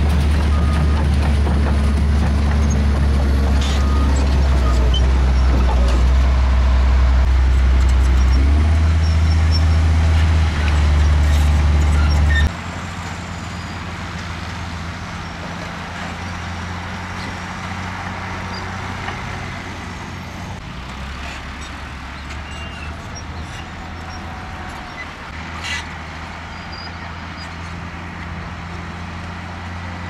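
Heavy dump truck's diesel engine running loud with a deep, steady drone while its tipper body is raised to unload dirt. About twelve seconds in it cuts suddenly to a quieter, steady diesel engine sound as a dump truck drives across the site.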